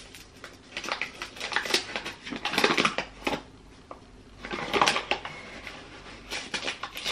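Kitchen handling noises while sugar is measured out: scattered clicks and knocks of a measuring cup and utensils, with two short bursts of rustling and scraping about two seconds apart.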